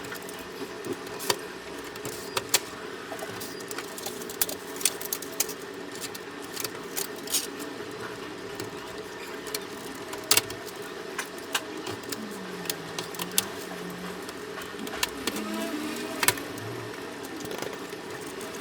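A steady mechanical hum with frequent sharp clicks and knocks scattered through it.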